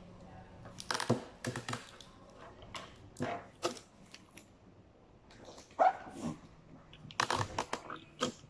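Wrapping paper crinkling and rustling, with sticky tape handled, as a cardboard box is gift-wrapped by hand: a string of short, irregular crackles, with one louder, sharper sound a little before six seconds in.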